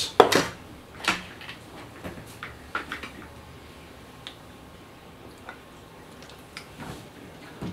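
Flush cutters snipping a component lead with one sharp click just after the start, followed by scattered lighter clicks and taps of tools and parts being handled on a workbench.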